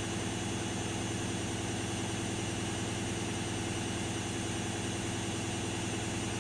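Candy Activa Smart washing machine running with a steady motor hum that holds one even pitch throughout.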